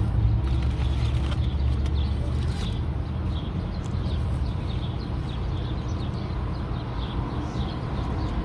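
Wind buffeting the microphone in a low rumble, with small birds chirping in short, falling chirps again and again, and close-up chewing.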